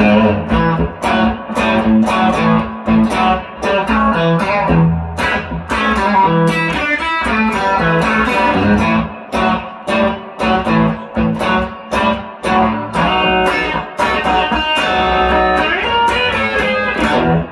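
Electric guitar (a 1957 Fender Esquire with a 1950s Fender flat-pole lap-steel pickup) played through a 1965 Fender Deluxe Reverb amp. It plays busy picked single-note lines over low bass notes, with many sharp note attacks each second, and stops right at the end. The tone is compressed and squished up.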